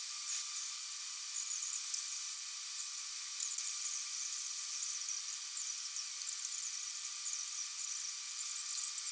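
Light, irregular scratching of a fine paintbrush on watercolour paper over a steady high-pitched hiss.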